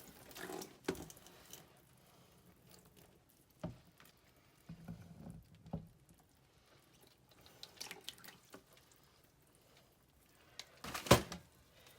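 Quiet scattered drips and small taps of water around a block of coconut coir soaking in a bowl, with one sharper, louder knock near the end.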